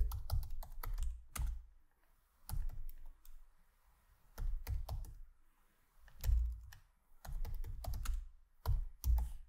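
Typing on a computer keyboard: short bunches of key clicks with dull thumps under them, separated by pauses of a second or so.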